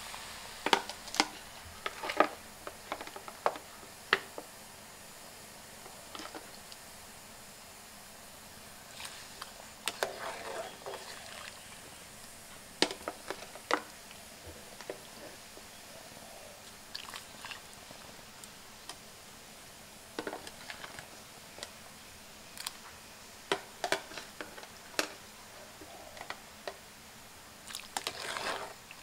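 Cooking at an aluminium stockpot of boiling broth: scattered sharp clicks and knocks and a few short splashing clusters as seafood and herbs go into the pot, over a low steady hiss.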